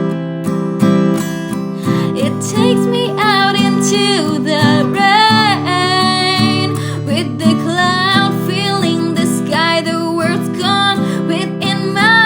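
Music: strummed acoustic guitar, with a wavering, gliding melody line over it from about two seconds in.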